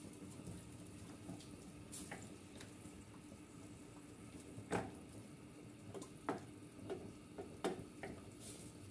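Wooden spoon stirring simmering tomato sauce in a stainless steel pan, with a few short knocks and scrapes of the spoon against the pan, most of them in the second half.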